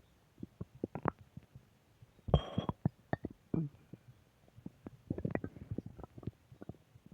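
Human stomach growling and gurgling: a string of short, irregular bubbling pops, with a longer, louder rumble about two seconds in and a thicker run of gurgles over the last two seconds.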